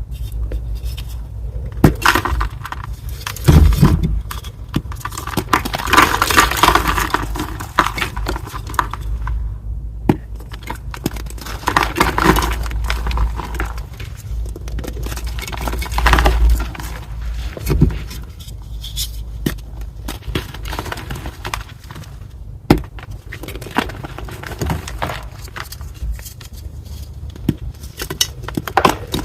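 A reformed gym chalk block being crushed, crunching and crumbling in repeated gritty bursts, with a few sharp cracks.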